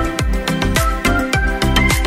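Upbeat background music with a steady dance beat.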